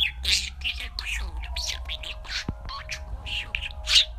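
Budgerigar chattering: a rapid run of short, high chirps and warbles over a low steady hum.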